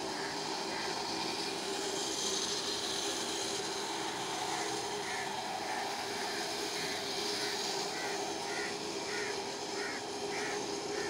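Steady outdoor background hum with short high chirps now and then, coming in a quicker run near the end.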